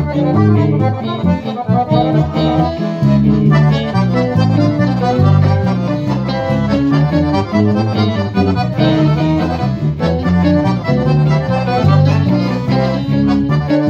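Piano accordion playing a melody with electric guitar accompaniment, a live instrumental with strong, steady low notes underneath.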